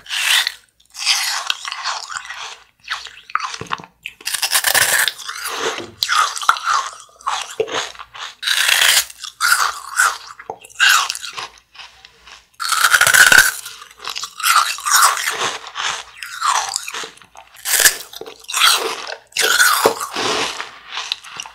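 Close-up crunching and chewing of a hard blue candy being bitten, loud crisp crunches repeating about once a second.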